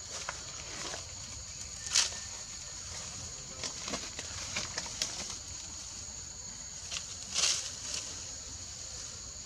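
Steady high-pitched chirring of insects, with faint scattered rustles and clicks from movement on dry ground. A sharp click about two seconds in and a short scratchy noise a little past seven seconds stand out as the loudest sounds.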